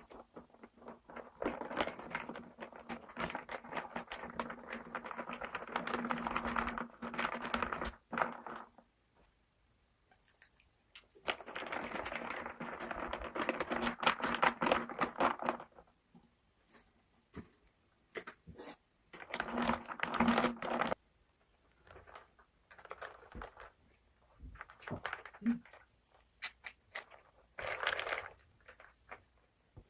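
Plastic snack packaging crinkling as it is handled and opened, in several long crackly stretches with short pauses between.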